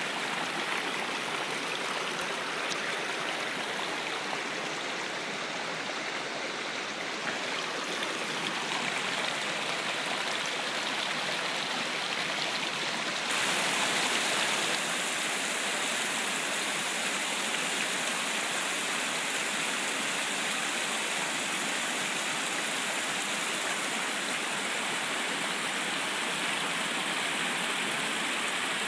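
Small mountain creek flowing over rocks and fallen logs, splashing down little cascades in a steady rushing wash. About halfway through the sound changes abruptly and is briefly louder, then settles again.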